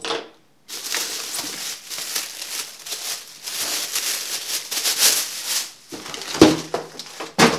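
Clear plastic bag crinkling and rustling as a boxed transmitter is pulled out of it, followed by two sharp knocks near the end.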